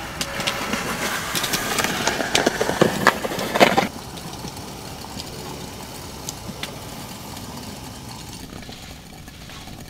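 Water boiling in a glass kettle of tea on a camping gas stove, a busy bubbling with many sharp pops and crackles over the burner's steady hiss. About four seconds in, the bubbling drops off suddenly, leaving a quieter steady hiss.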